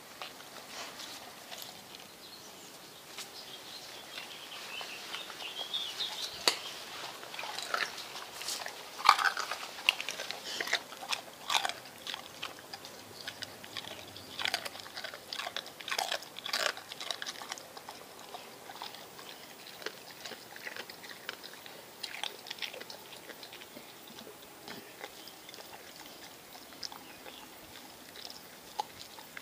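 American Staffordshire terrier chewing and crunching a fish, with irregular sharp crunches that are busiest and loudest through the first half and thin out later.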